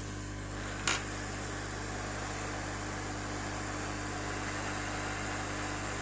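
Hot air rework station blowing a steady hiss of air while reflowing UFL connectors onto a circuit board, with a low steady hum under it and a single short click about a second in.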